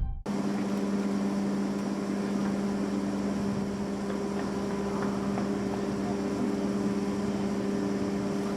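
Steady machinery hum of a ship: a constant low drone with a few fixed pitched tones over a bed of noise.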